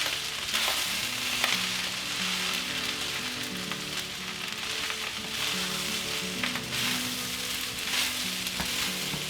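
Fried rice with pork, egg and vegetables sizzling in a hot oiled pan while it is stirred, with a few short scrapes and knocks of the utensil against the pan.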